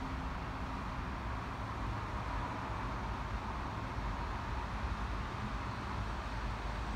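Steady street traffic noise: cars passing on a wide road, a constant hum of engines and tyres with a low rumble underneath.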